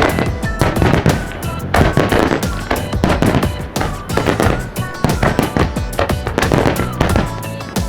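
Fireworks display: rapid bangs and crackling bursts, over music playing along.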